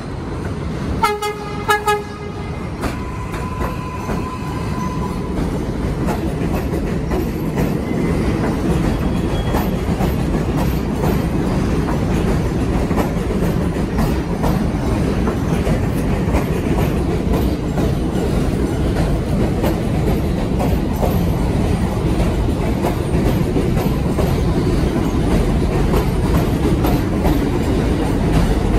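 New York City subway train sounding its horn in two short blasts about a second in, then pulling into the elevated platform: a steady rumble of wheels on the rails, with clicking over the rail joints.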